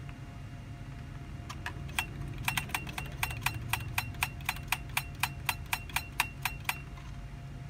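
Thin metal pick clicking and scraping against a laptop's CMOS coin-cell battery and its holder contacts, a rapid run of small metallic clicks, several a second, that starts about one and a half seconds in and stops about a second before the end. The contacts are being scraped so the battery makes good contact.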